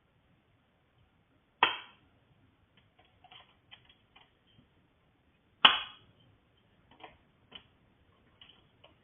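Two loud, sharp knocks about four seconds apart, with lighter taps and clicks between and after them, like something getting chopped.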